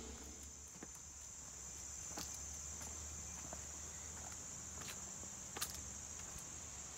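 Steady high-pitched drone of insects calling, with a few faint clicks of footsteps on paving stones.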